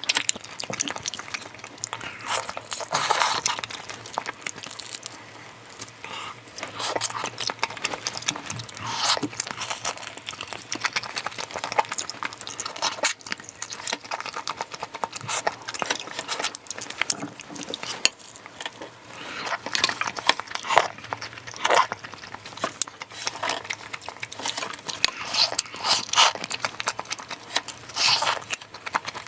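Close-miked eating of pork back-bone stew with rice: spoon and chopsticks clinking and scraping against the bowl, mixed with chewing and mouth noises, as many irregular short clicks and bursts.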